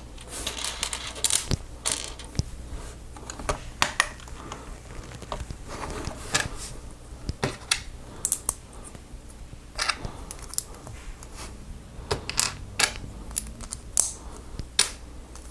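Small plastic Lego pieces being handled and snapped together: a run of irregular sharp clicks and taps.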